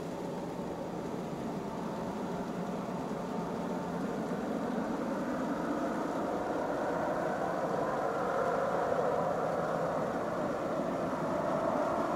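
Boeing 767-300ER jet engines on final approach and landing, a steady rumble and whine growing gradually louder as the airliner comes in.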